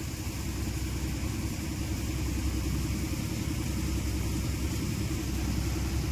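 Tractor-driven Jangir 'tokri' model thresher running under load while threshing chickpeas, powered by an Eicher 368 39 hp tractor: a steady low rumble and hum that grows slightly louder over the first couple of seconds.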